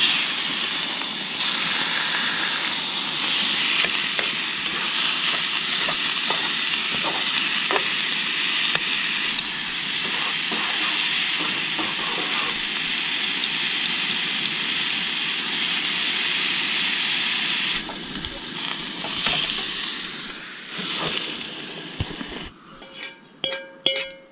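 Steak and diced vegetables sizzling in a frying pan on a propane camp stove, with the tongs now and then clicking against the pan. About 22 seconds in, the sizzling stops as the pan comes off the heat, and a few metal clinks of pan and tongs follow.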